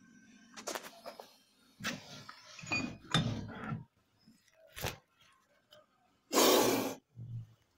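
Cobra hissing: one loud, sharp hiss lasting under a second about six seconds in, followed by a short weaker one. Before it come scattered knocks and clinks from the metal box the snakes are coiled in.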